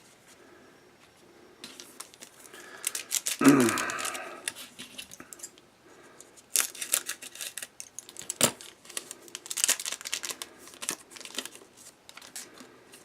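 A foil trading-card pack wrapper being cut open with scissors, crinkling and tearing in irregular bursts, loudest about three and a half seconds in.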